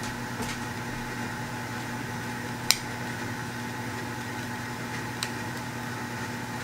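A few sharp plastic clicks as the power bank's case halves are pressed and snapped together, the loudest about two and a half seconds in, over a steady electrical hum in the room.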